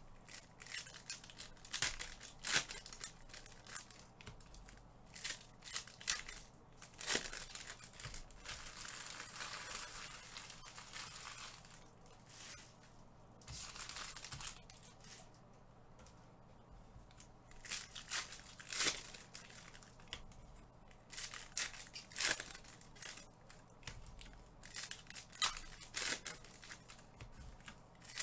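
Crinkling and tearing of plastic trading-card wrappers, with scattered light taps and clicks from cards being handled.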